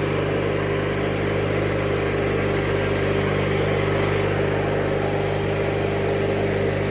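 1997 MTD Yard Machines riding lawnmower's engine running at a steady speed as the mower is driven along, with an even, unchanging pitch.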